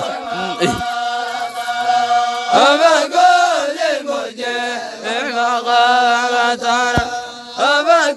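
Voices chanting in long held notes, with swooping rises and falls between them. One sharp knock comes near the end.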